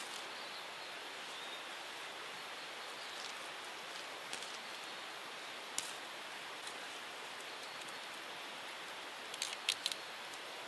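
Pliers clicking and snipping as wire ties are twisted onto chicken wire: a single click about halfway and a quick cluster of clicks near the end, over a steady background hiss.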